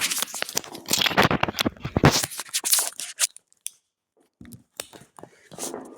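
Rustling, crinkling and snipping handling noises of things being worked with by hand, dense for about three seconds, then stopping, with a few faint clicks near the end.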